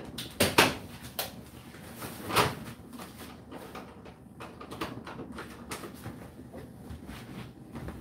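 Whirlpool WFO3P33DLXUK dishwasher in its main wash: water spraying and sloshing inside the tub as a steady wash, with irregular louder swooshes, the two strongest about half a second and two and a half seconds in.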